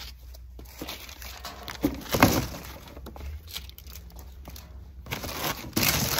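Cardboard box and foam packing sheets rustling and crinkling as the box is unpacked by hand, with a louder crackle about two seconds in and louder rustling near the end.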